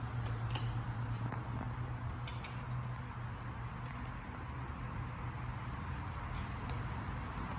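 A steady low buzzing hum, with a few faint light clicks.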